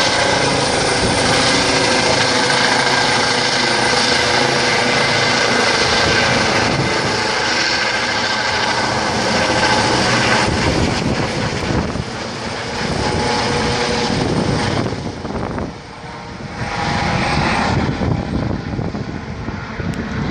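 Air ambulance helicopter climbing away after take-off, its rotor and turbine sound loud and steady at first, then weakening and wavering from about halfway through as it flies off.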